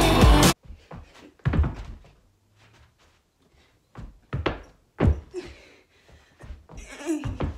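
Stage-show music cuts off abruptly about half a second in. A series of dull thumps follows as a person's hands, feet and body land on the floor during attempted flips, with quiet gaps between them.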